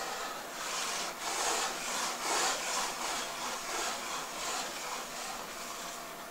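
Blackboard eraser rubbing back and forth across a chalkboard, about two strokes a second, dying away near the end.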